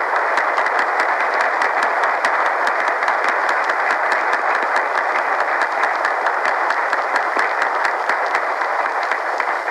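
A crowd applauding steadily in an old speech recording, with a narrow, muffled sound.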